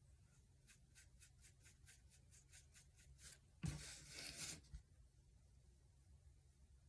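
Paintbrush scratching on canvas in quick short strokes, about five a second. Then a louder scrape of about a second as the canvas is turned on the cardboard work board, with a bump at the start and a knock as it settles.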